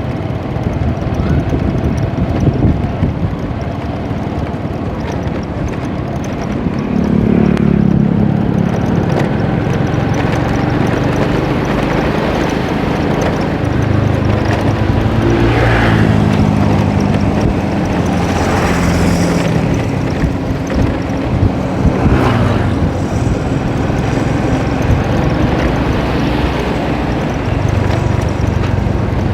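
An engine running steadily and loud, its pitch shifting up and down through the middle part.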